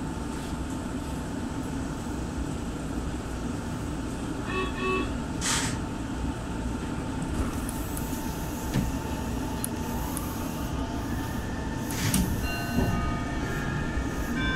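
Train running, heard from just behind the driver's cab: a steady rumble of wheels on rail with a thin steady whine. Near the end, several high ringing tones come in.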